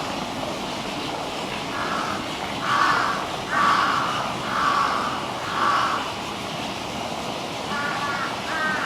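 A crow cawing about five times in a row, each caw short and harsh, over a steady background hiss; a different, bending call starts near the end.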